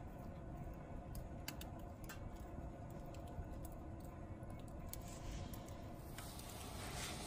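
Wood campfire crackling, with scattered sharp pops over a low steady rumble. About five seconds in, a hissing sets in and grows louder.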